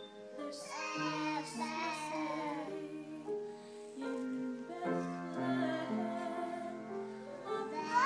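Music: a high voice singing a slow melody over held instrumental notes.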